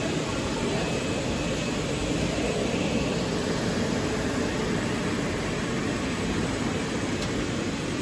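Plastic vacuum-cleaner hose extrusion line running: a steady, even machinery noise that does not change.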